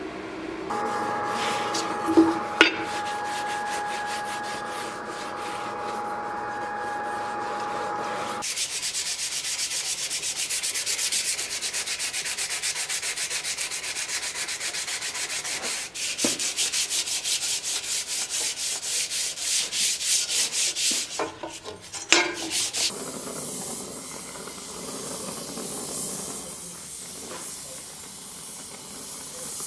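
Hand-sanding a pattern-welded sword blade on a wooden block, rhythmic rubbing strokes at about four a second. It is preceded by a steady hum from the gas forge with two sharp clicks, and near the end gives way to the steady hiss of an oxy-fuel torch flame.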